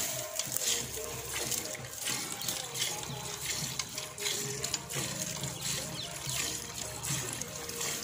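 Hand-milking of a water buffalo: jets of milk squirt one after another in a steady rhythm into a steel pail that already holds milk.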